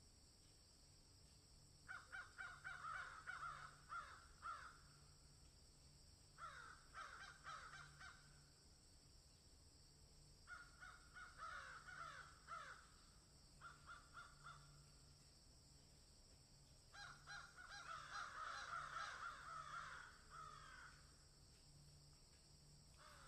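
Crow cawing in several bursts of quick, repeated caws separated by pauses of a second or two, with a short last call near the end.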